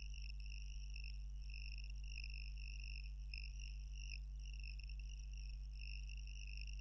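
Quiet background of a home voice recording: a steady low electrical hum under a continuous high-pitched chirring.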